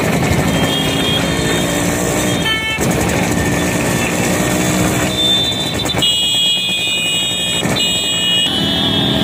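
Many motorcycle engines running together at low speed in a slow-moving procession. A shrill held tone sounds from about five seconds in, breaking briefly near eight seconds, with a short blip of it earlier.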